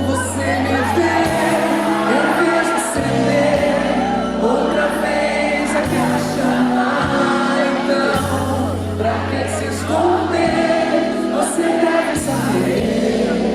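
Live band music with singing: held bass notes that change every couple of seconds under a sung melody.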